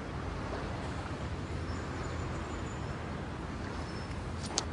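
Steady outdoor city background with a low traffic rumble, and a short sharp click near the end.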